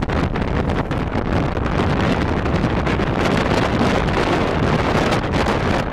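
Strong wind buffeting the microphone, a loud, gusty rush of noise that does not let up.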